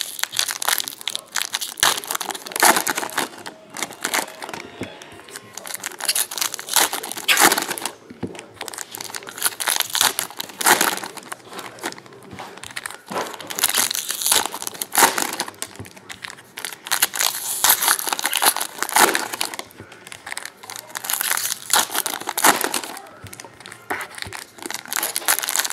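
Foil wrappers of Panini Prizm football card packs being torn open and crinkled by hand, in irregular bursts of crackling rustle every second or two.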